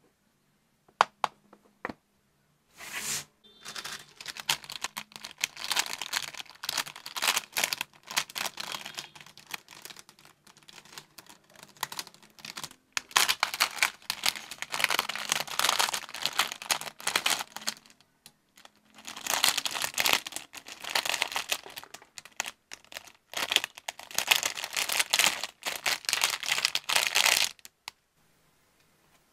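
Packaging being crinkled and crumpled by hand, in three long stretches of dense crackling separated by short pauses. A few sharp clicks come in the first two seconds.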